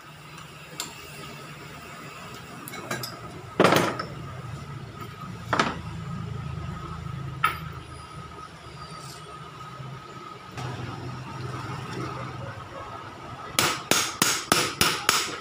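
Sharp metal knocks and clinks from work on a car A/C compressor clutch with a steel gear puller: a few single knocks, then near the end a quick run of about seven strikes, roughly five a second. A low hum runs underneath and stops shortly before the run of strikes.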